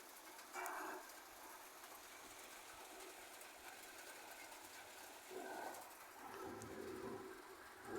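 Faint pigeon coos: one short call about half a second in, then a longer run of low coos from about five to seven seconds, over a faint steady hiss.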